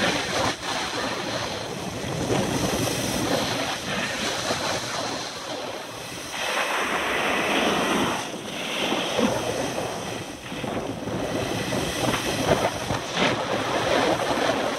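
Wind rushing over the microphone and edges hissing and scraping across groomed snow while riding down a ski slope. The scraping swells and fades with each turn.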